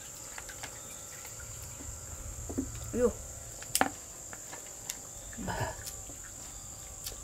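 Steady high-pitched drone of insects, with a few sharp clicks of chopsticks against bowls and a couple of brief vocal sounds from the diners.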